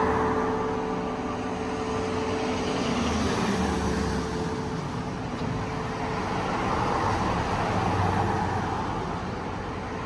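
Road traffic passing, a noisy rush that swells twice, once about three seconds in and again near the eight-second mark. Under the first swell, the hum of the church bells' last strike dies away.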